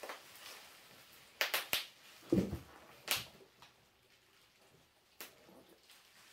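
A few sharp clicks and one duller knock from painting supplies being handled, scattered over about four seconds.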